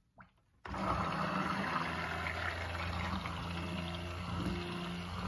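Immersion (stick) blender switched on about a second in, then running steadily with a motor hum, its blade whirring in a bowl of soap-making oils mixed with titanium dioxide.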